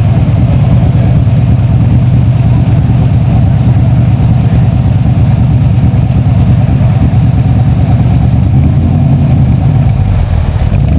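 Shelby Cobra 427 replica's V8 engine idling with a loud, steady low rumble from its exhaust.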